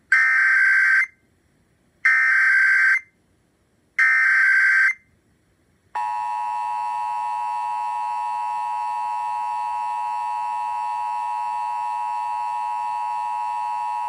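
Emergency Alert System signal through a Midland weather radio's speaker. First come three one-second bursts of the shrill digital SAME header, two seconds apart. About two seconds after the last burst the steady, harsh two-tone EAS attention signal starts and holds, marking the start of the Required Monthly Test.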